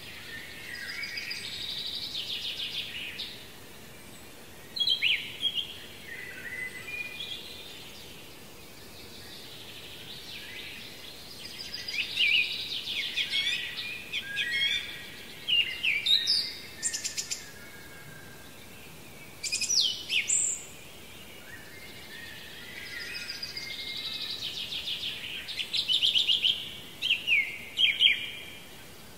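Songbirds singing in repeated bouts of fast trills and sharp down-slurred notes, with pauses of a few seconds between the bouts.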